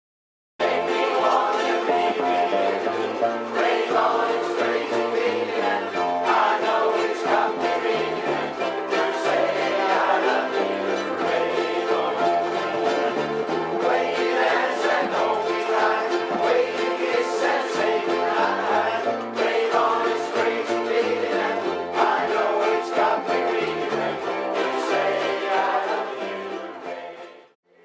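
A ukulele band strumming and playing a tune together; the music fades out near the end.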